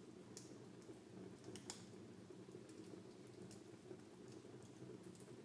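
Wood fire crackling faintly: irregular sharp snaps and pops over a low, steady rush.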